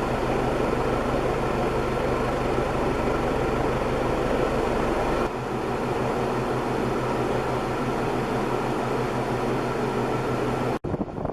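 1984 Golden Fan 36-inch four-blade ceiling fan running on high speed: a steady motor hum under a rush of air from the blades. The hum shifts about halfway through, and the sound breaks off abruptly near the end.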